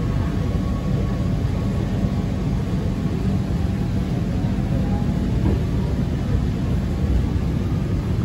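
Rubber-tyred Alstom Innovia 300 monorail car running along its guideway past a station platform, heard from inside the cabin as a steady low rumble.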